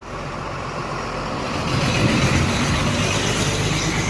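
A motor vehicle running: a steady low engine hum under a rushing noise, which grows louder about a second and a half in.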